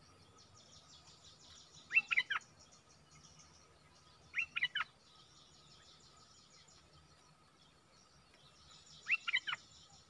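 A bulbul calling: three short phrases of three or four quick, sharp notes, about two seconds in, near the middle and near the end, over a faint high buzz.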